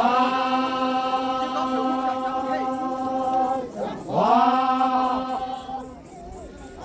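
A large group of Naga performers chanting in unison on long held notes. A second held note begins with a rising swoop about four seconds in, and the chant fades near the end.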